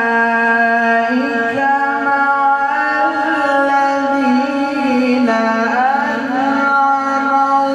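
A man's melodic Quran recitation (tilawat), sung in long held notes with ornamented turns, and a rising slide in pitch a little past the middle.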